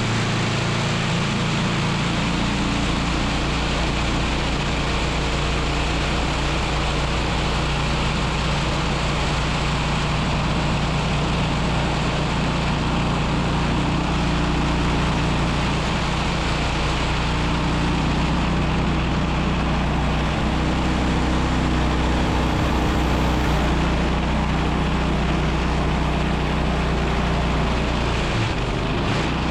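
Portable band sawmill's gasoline engine running steadily under load as the band blade cuts through a red oak log.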